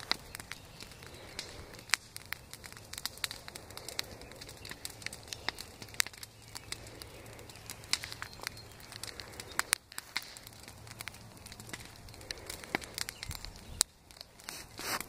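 Brush-pile bonfire of dead branches crackling, with sharp irregular pops several times a second over a soft steady hiss. A short, louder rustling noise comes near the end.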